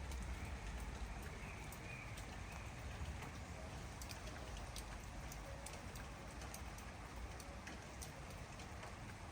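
Steady rain, with individual drops ticking irregularly against leaves and surfaces, and a bird calling faintly now and then.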